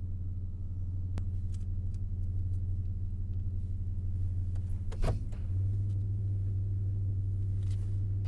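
Car driving, heard from inside the cabin as a steady low rumble. A brief noise about five seconds in, after which the rumble gets slightly louder.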